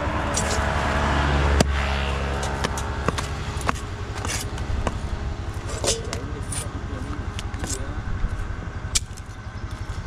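An engine running steadily with a rapid low pulsing beat, swelling louder over the first second and a half, with a few sharp knocks scattered over it.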